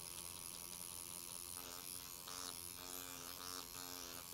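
Motorized microneedling pen buzzing faintly as its vibrating needle cartridge works over the skin, with a clearer humming tone from about a second and a half in.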